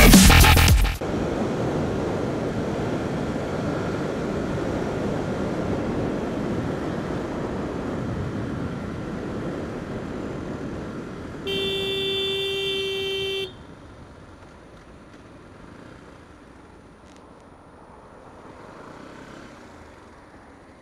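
Electronic intro music cuts off about a second in, giving way to the steady rush of wind and engine from a motorcycle riding through traffic. Past the middle, a vehicle horn sounds one steady note for about two seconds. After the horn the riding noise is quieter.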